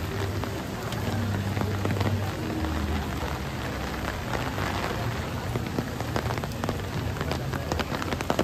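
Steady rain falling, with many separate sharp drop hits striking an umbrella held close overhead, over a low rumble.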